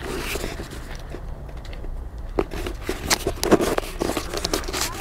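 Handling noise: irregular scrapes, rustles and knocks, the loudest cluster about three and a half seconds in, over a steady low rumble.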